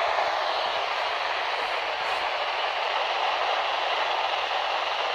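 Steady static hiss from a weakly received TV broadcast signal.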